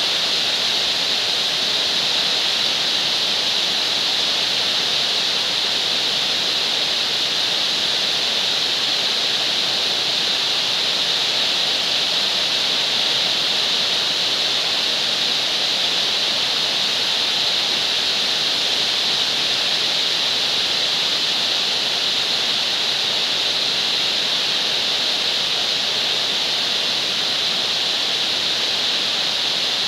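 Heavy rain pouring steadily: an even, bright hiss with no pauses and no single drops or knocks standing out.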